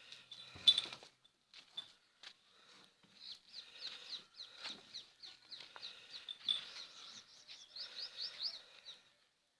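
Small birds chirping in quick short high calls, several a second, with one sharp knock just under a second in.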